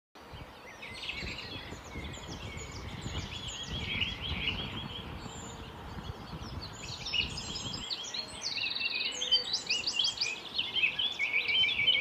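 Several songbirds singing and chirping at once, in quick overlapping phrases. A low rumble runs under them for the first two-thirds and stops abruptly about eight seconds in.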